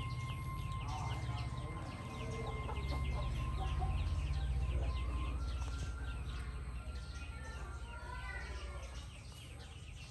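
Many small birds chirping rapidly and continuously, over a low rumble that swells in the middle and then eases.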